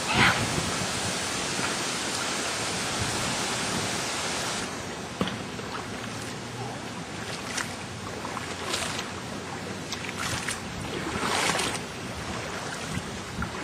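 Tropical-storm rain and wind, a steady hiss that eases slightly about four and a half seconds in, with a few short swells after that.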